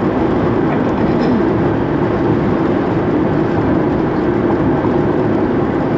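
Steady road noise inside an older four-cylinder car's cabin at highway speed: engine, tyres and wind blending into an even rush with a constant low drone.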